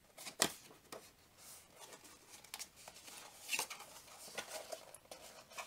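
Paper rustling and crackling as a strip of patterned designer paper is wrapped around a small card gift box and finger-creased. There is a sharp tap about half a second in and a louder crinkle a few seconds later.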